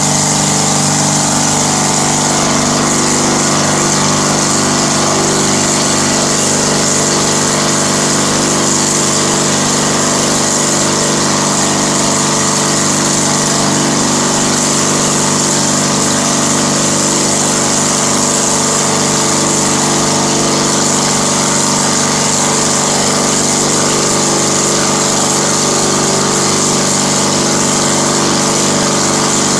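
Ragwing Stork ultralight's nose-mounted engine running on a ground test, holding a steady speed as it turns its propeller.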